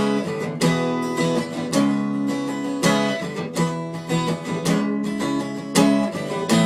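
Acoustic guitar strumming chords in an instrumental break, a strong downstroke roughly once a second with the chord ringing between.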